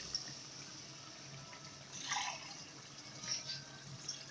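Water poured into an aluminium cooking pot of potato masala. The stream fades out soon after the start, followed by a few brief splashes in the pot.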